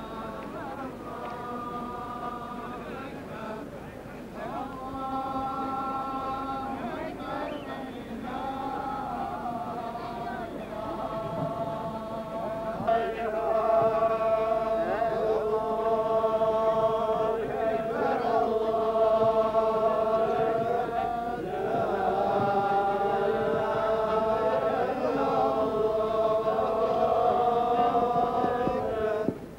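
A group of men chanting together in unison: a Muslim religious chant in long held notes, phrase after phrase, growing louder about halfway through.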